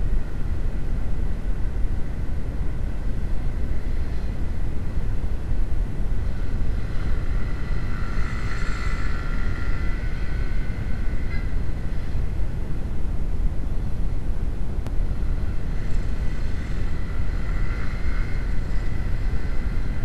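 Wind rumble on an action camera's microphone while riding a Honda CB150R motorcycle in traffic, with engine noise underneath. A higher engine note swells briefly about eight to ten seconds in, as a scooter rides close alongside, and again near the end.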